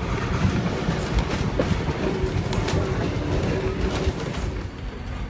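Kuranda Scenic Railway train running along the track, heard from on board a carriage: a steady rumble with a few sharp clicks from the wheels.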